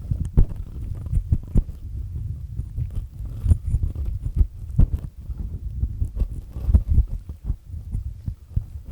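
Ear-cleaning scraping with a black triple-disc earpick, grinding and rubbing close to the microphone. It makes an uneven run of dull scratchy knocks and rubs with occasional sharper clicks.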